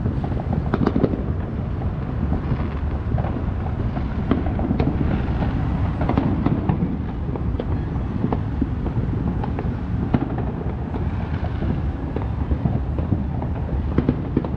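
Many distant fireworks and firecrackers going off across the city: a near-continuous scatter of bangs and pops over a steady low rumble.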